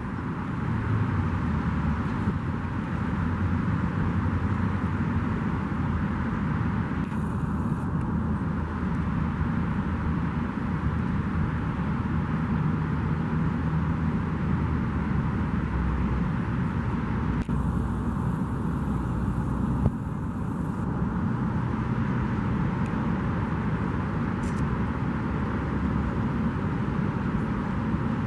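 Steady low outdoor rumble of open-air background noise, with a brief faint hiss twice.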